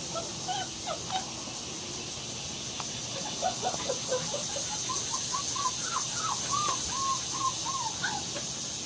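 German Shepherd–Labrador mix puppies whimpering: short whining cries that rise and fall in pitch. A few come in the first second, then a quick run of them through the second half.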